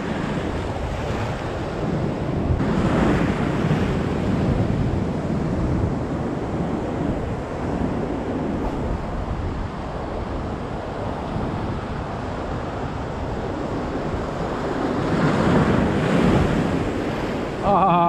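Rough sea surf breaking and washing over rocks, with wind buffeting the microphone. The surf swells louder about three seconds in and again near the end.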